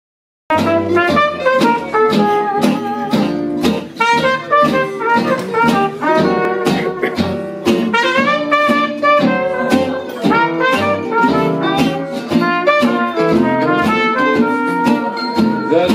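Small acoustic jazz band playing an instrumental passage: trumpet carrying the melody over steadily strummed acoustic guitars and upright bass. The music starts about half a second in.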